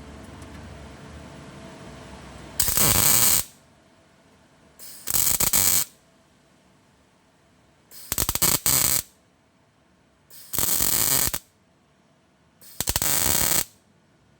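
MIG welder arc firing in five short bursts of about a second each, laying tack or stitch welds on thin car body steel with the mixed shielding gas turned on. A steady background hum stops just before the first burst.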